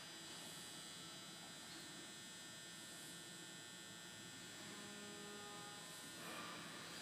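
Faint steady electrical hum with a thin high whine from running machinery, with a brief extra tone about five seconds in.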